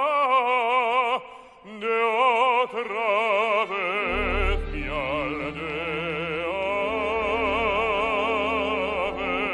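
Operatic baritone singing a zarzuela aria with a wide vibrato. There is a short break for breath about a second in, and a low instrumental accompaniment comes in underneath about four seconds in. The phrase ends on a long held note.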